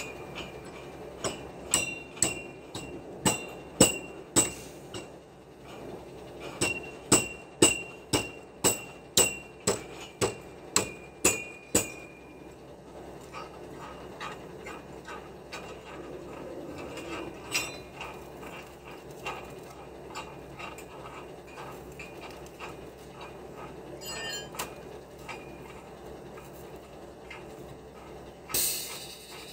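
A hammer striking metal concrete formwork: a run of sharp, ringing metallic blows about two a second, with a short break about five seconds in, stopping about twelve seconds in. After that come only a few scattered knocks and a short burst of noise near the end.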